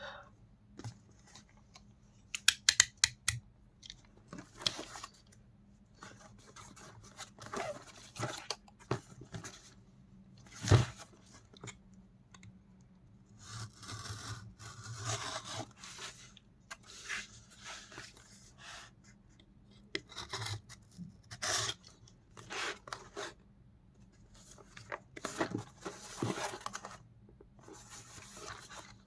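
Pen packaging being opened by hand: tearing, rustling and scraping of the wrapping in irregular spells. A quick run of sharp clicks comes about three seconds in, and a single loud knock around eleven seconds.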